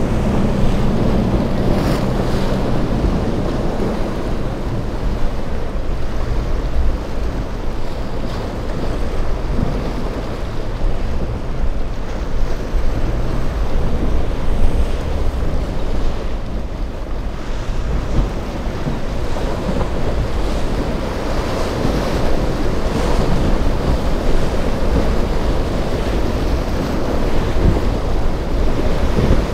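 Ocean surf breaking, with wind noise on the microphone and boat engines running as the boats push through the waves; a low engine hum is clearest in the first few seconds.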